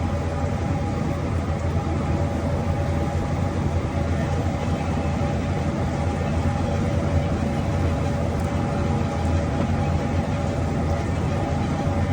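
Steady machine drone: a low hum with two steady higher tones over it, running evenly throughout.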